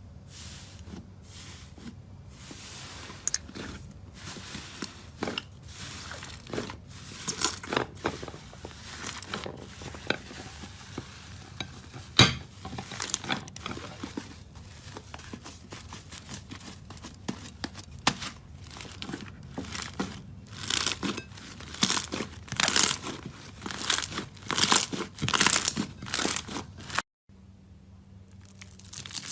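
Slime being squeezed and pressed by hand, making an irregular run of crackling, crinkling pops and clicks, busiest in the second half. It cuts off abruptly near the end, then softer crackling starts again.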